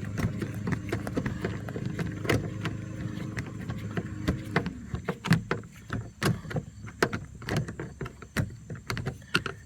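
Irregular small clicks and taps of a screwdriver and the plastic door-handle trim being worked loose from a Mercedes W126 door panel, over a low steady hum that stops about halfway through.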